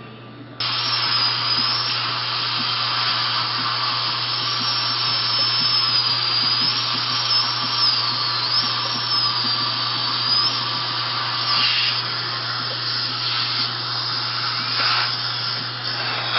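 High-speed dental drill cutting a broken tooth, its high whine wavering in pitch as it works, over the steady rush of the suction. It starts suddenly about half a second in; the whine drops out after about ten seconds, leaving the suction with a few short breaks.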